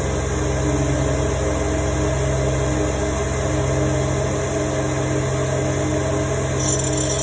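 F3 CNC side grinder running after being switched on: a steady motor hum with a regular pulse in it about one and a half times a second. A higher hiss joins in near the end.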